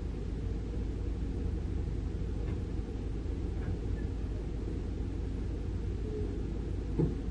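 Heavy diesel machinery running steadily at low revs, a low even drone, with a short knock near the end.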